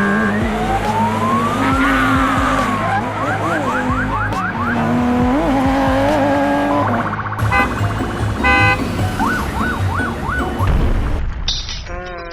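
A siren sound effect: a slow rising and falling wail, then fast repeated yelps, the yelps coming twice, over a music-like bed of steady tones.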